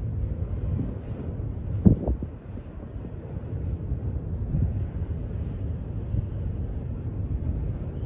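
Double-stack container train rolling past, a steady low rumble of its wheels on the rail. Two sharp knocks come close together about two seconds in.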